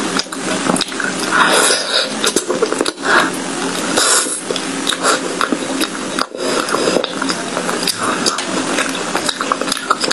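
Close-miked chewing of a sticky purple glutinous rice cake coated in chocolate sauce: continuous wet, squishing mouth sounds with many small clicks and smacks.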